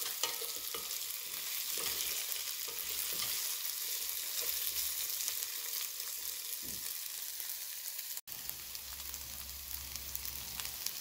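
Chunks of potato, carrot and boiled beans sizzling as they fry in a nonstick wok, stirred with a wooden spoon that scrapes lightly along the pan. The sound drops out for an instant about eight seconds in, and the stirring has stopped by the end while the sizzle goes on.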